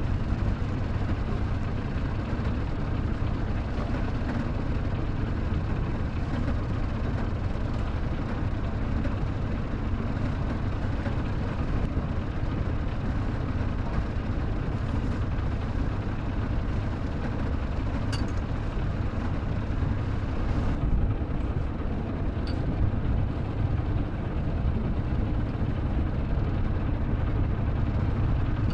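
Sailboat's engine running steadily while motoring, a low, even drone.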